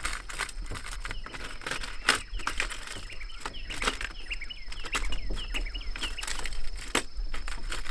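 A bird chirping in a quick run of short, rising notes through the middle, over scattered clicks and knocks of fishing rods and tackle handled on a boat deck.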